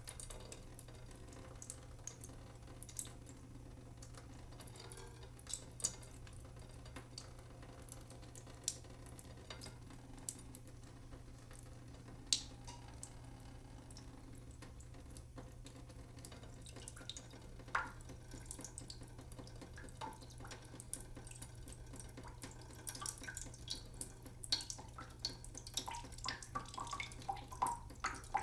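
Water dripping: single drops falling one at a time with small plinks, a few seconds apart at first and coming more quickly in the last few seconds.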